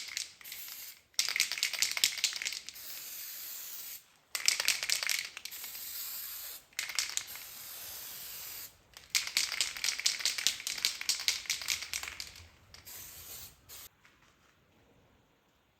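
Paint being sprayed in about seven bursts of hiss with short gaps between them, each burst starting with a sputter, stopping shortly before the end.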